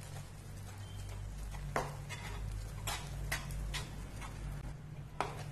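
Metal spatula stirring and scraping a thick, wet wheat-flour sheera in a non-stick pan, with a few sharp taps against the pan over a steady low hum.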